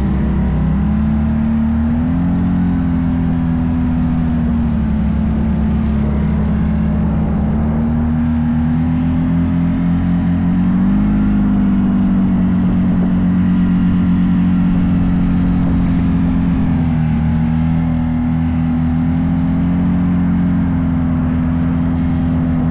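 Off-road vehicle engine running steadily while riding on a trail, its pitch rising and falling slightly with the throttle.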